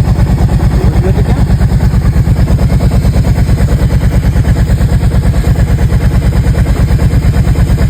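Kawasaki Prairie 700 ATV's V-twin engine idling steadily with an even, rapid low pulse, run after an oil change to fill the new oil filter and check for leaks.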